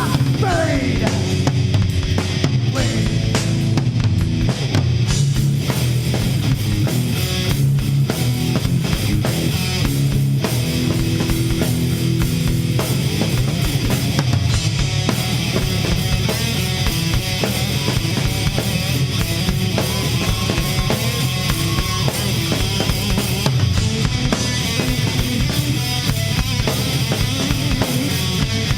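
Live rock band playing loud, with a drum kit, distorted electric guitar and bass guitar.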